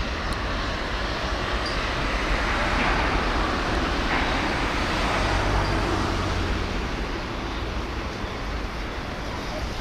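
Steady outdoor background rumble and hiss, swelling a little for a few seconds in the middle.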